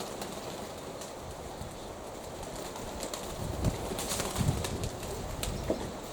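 Domestic pigeons cooing, against a low, steady rumble of wind, with a few low thumps about halfway through.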